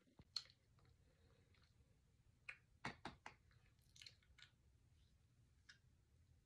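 Mouth sounds of dry Argo cornstarch being eaten off a spoon and chewed: scattered sharp squeaks and crunchy clicks, bunched together a little before the middle and thinning out toward the end.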